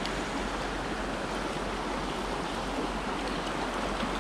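Shallow, rocky creek running steadily, a constant rush of moving water.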